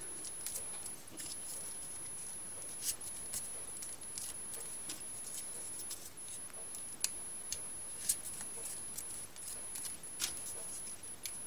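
Folded paper units of a 3D origami model being handled and pushed into place: light paper rustling with scattered small clicks and ticks.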